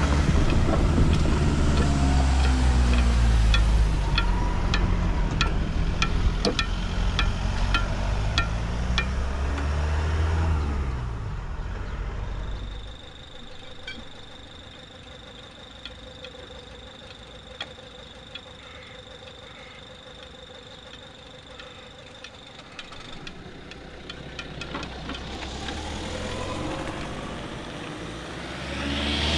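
Cars driving over the level crossing. A car engine runs loud and close for the first twelve seconds or so, its pitch dipping and rising, with a run of regular sharp ticks. Then comes a quieter stretch with a faint steady high tone, and another car approaches and passes close near the end.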